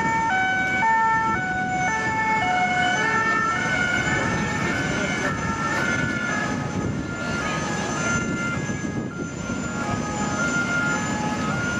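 A pitched tone stepping up and down between notes about twice a second, like a multi-tone siren or warning melody. Under it run the steady rumble and high whine of a jet airliner on the apron, an Airbus A380-800.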